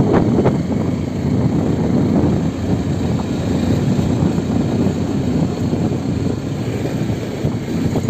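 A vehicle driving along a dirt road: a steady engine drone under the rough, continuous noise of tyres rolling over the unpaved surface.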